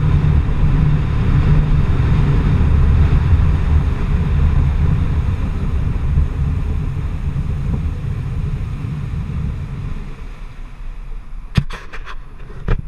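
Boat running on open water: a loud rush of wind and water over a low rumble, slowly fading, with a few sharp knocks near the end.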